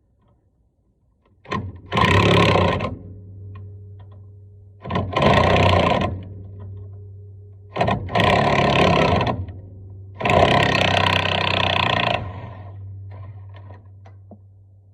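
Impact wrench rattling in four bursts of one to two seconds each, working bolts on the truck's front brake and spindle assembly, with a steady low hum between the bursts. The bolts come off hot.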